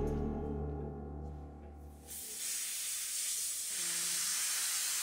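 Background music fading away, then from about two seconds in a steady hiss of air escaping from a red rubber balloon's neck.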